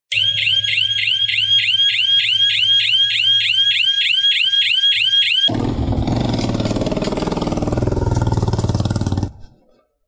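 An electronic alarm siren sounds a rapid rising whoop, about four times a second, over a low hum. About five and a half seconds in, it gives way to a louder, dense rushing noise with a low rumble, which cuts off near the end.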